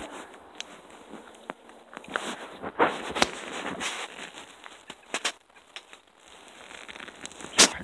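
Footsteps pushing through dry grass and brush, with rustling and irregular crackling twig snaps; the sharpest crack comes near the end.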